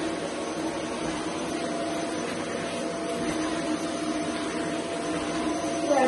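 Vacuum cleaner switched on and running steadily, its motor giving a constant hum with a steady whine over it.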